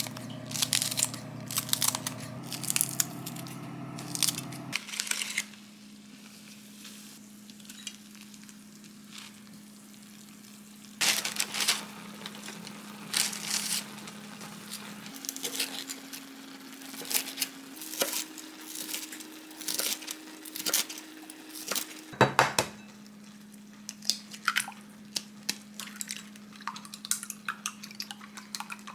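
Kitchen clatter of dishes and utensils during cooking: scattered clinks, taps and scrapes, with a few sharper knocks about 11 seconds in and again near 22 seconds. A faint steady low tone runs underneath, changing pitch several times.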